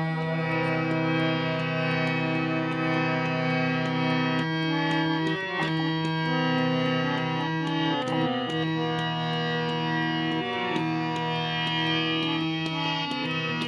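Harmonium playing an instrumental passage between sung lines: reedy sustained notes and chords, changing every second or two.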